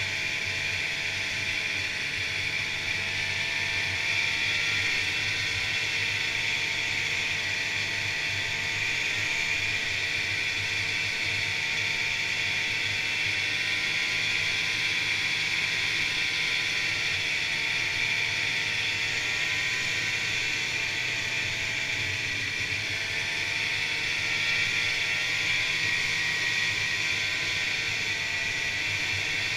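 Polaris Indy two-stroke snowmobile engine and track running steadily at trail cruising speed, heard from on board, with small dips and rises in pitch as the throttle eases and picks up.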